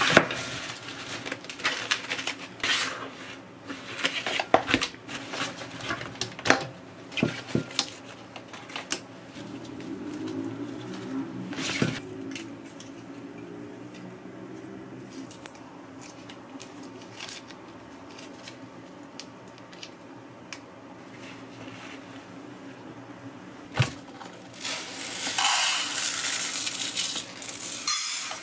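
Groceries being unpacked onto a counter: plastic packaging rustling, items set down with knocks and clicks, and a glass jar handled. About 25 seconds in, dry rice pours with a steady rushing patter into a metal rice-cooker pot.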